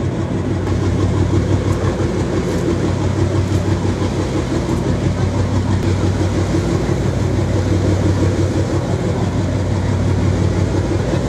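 Boat engine running steadily under load while towing, a deep even drone over the rushing wash of the wake.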